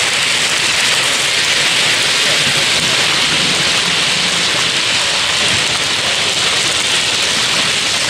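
A steady, loud rushing hiss like rain, with no distinct tones or knocks in it.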